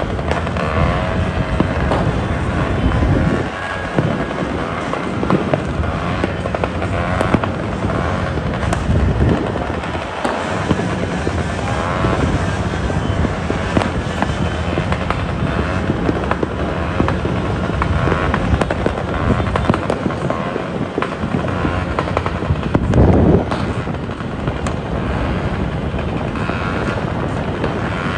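Fireworks going off across the city for New Year: a continuous, dense crackling and popping of many distant bursts at once.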